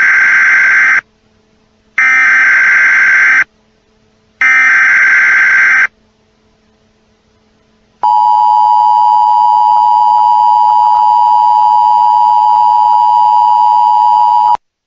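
Emergency Alert System broadcast tones: three buzzy data bursts of the digital alert header, each about a second and a half long with short gaps, then after a pause the steady two-pitch attention tone, held for about six and a half seconds and cutting off suddenly.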